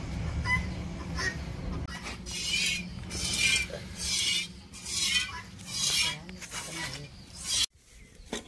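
Cow being milked by hand: squirts of milk hissing into a vessel in a steady rhythm, about one a second.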